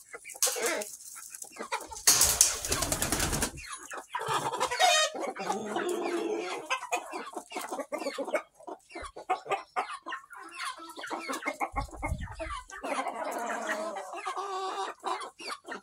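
A barn flock of hens and roosters clucking, with many short clicks from the birds moving and scratching in the litter. About two seconds in, a loud rush of noise lasts a second or so.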